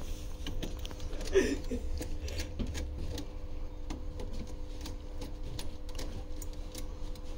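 Irregular light clicks and taps of hands and tools working at an electrical panel's wiring, over a steady low machinery hum with a faint steady tone.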